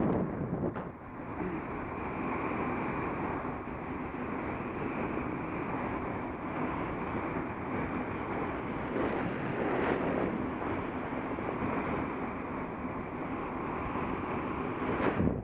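Wind rushing over a Contour Roam action camera's microphone as it moves along, a steady noise that swells now and then.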